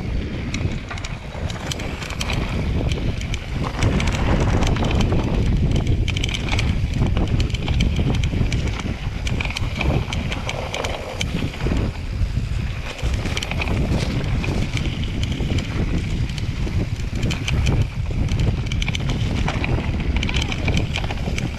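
Mountain bike descending a dirt singletrack, heard through an action camera: wind buffeting the microphone as a steady low rumble, with frequent clicks and rattles from the bike over the rough trail.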